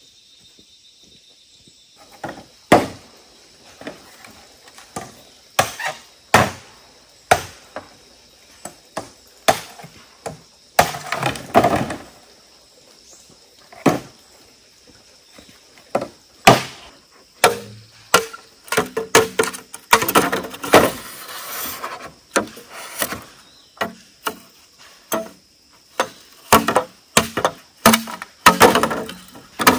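Repeated chopping strikes of a blade, irregular and about one a second, starting about two seconds in, with short stretches of scraping and rustling between the blows.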